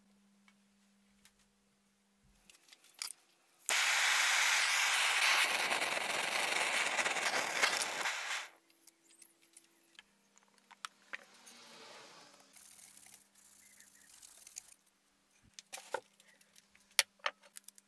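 Handheld gas blowtorch hissing steadily for about four and a half seconds as its flame scorches a wooden handle. Faint scraping follows, and a few sharp clicks near the end.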